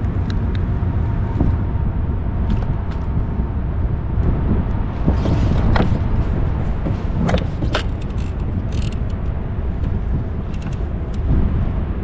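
Steady low rumble of wind buffeting the microphone, with scattered small clicks and rattles as a hooked smallmouth bass and its lure are handled.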